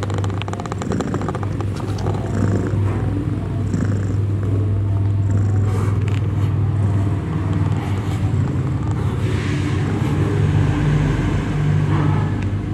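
Mother cat purring steadily, a close, continuous low rumble as she nurses her newborn kittens.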